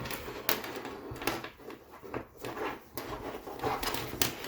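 Handling noise of an elastic suspender strap being looped around: a scatter of rustles and light clicks.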